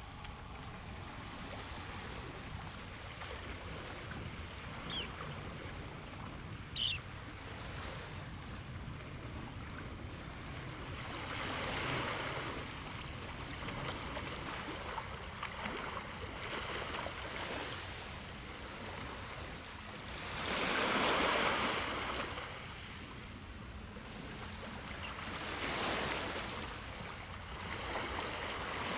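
Small waves washing onto a pebbly shore, the surf noise swelling every few seconds and loudest about two-thirds of the way through. Two brief high chirps stand out, about five and seven seconds in.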